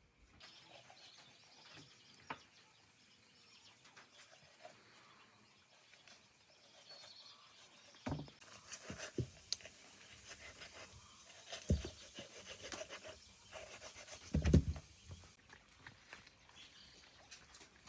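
Outdoor rural ambience with faint bird chirps and a few dull knocks, the loudest about three-quarters of the way through.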